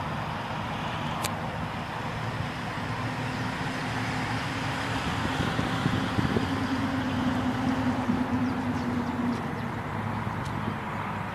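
Steady background traffic noise, with a faint steady hum for a few seconds in the middle and a single click about a second in.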